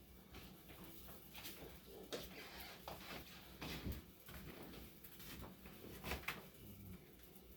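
Faint, scattered clicks and knocks, five or six of them, over low room tone.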